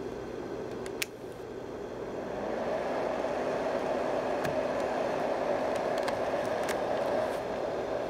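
Two fan-based white noise machines, a Marpac Dohm and a second Marpac-branded unit, running together with a steady whirring rush of air. A click comes about a second in, then the noise grows louder and fuller over the next two seconds as the Dohm's vented cap is twisted further open, and it holds steady after that.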